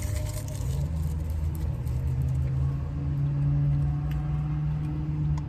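Car engine running with a steady low hum that grows louder over the first few seconds.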